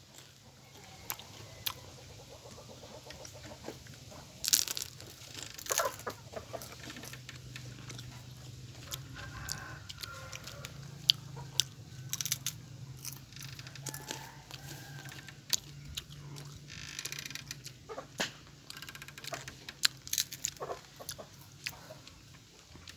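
Chickens clucking faintly among scattered clicks and taps, over a low steady hum.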